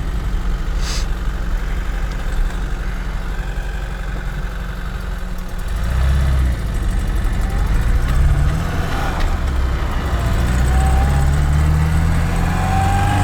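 VAZ 2107's four-cylinder engine running under way, heard from inside the cabin. About six seconds in it gets louder, and its pitch climbs and drops repeatedly as the car accelerates.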